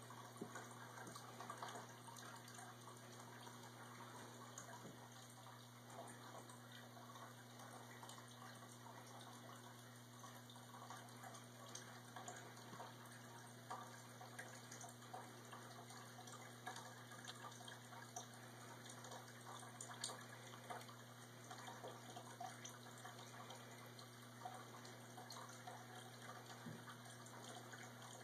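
Near silence: a low steady electrical hum with faint hiss and occasional tiny ticks.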